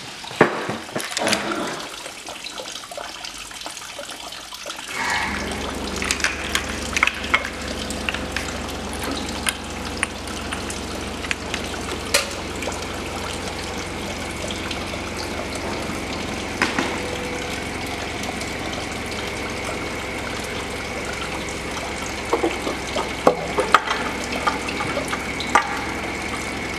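Light clicks and knocks of metal engine parts being handled, ending with a rocker cover being lifted off a Jaguar twin-cam straight-six head. Under them runs a steady hiss, with a low hum that comes in about five seconds in.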